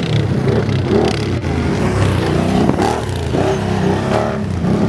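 Race ATV (quad bike) engines running hard and revving as the quads race past on a dirt course.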